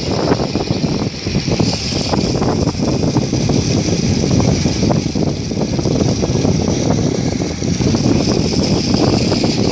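Heavy wind buffeting the microphone aboard a moving ferry boat, a dense, gusting rush with the noise of the boat and water beneath it.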